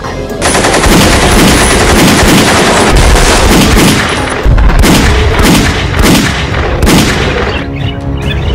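Sustained gunfire from rifles: a dense, rapid volley of shots with heavier single booms through the middle. It stops shortly before the end, and music takes over.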